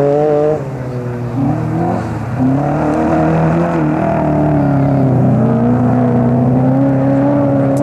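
Racing cars' engines on a sand track, revving up and down as the cars are driven hard through the bends; the pitch drops sharply about half a second in, then climbs and falls again several times.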